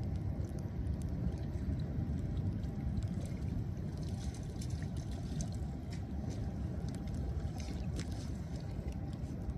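Light splashing and sloshing of shallow floodwater as feet and gloved hands move through it along a curb, over a steady low rumble.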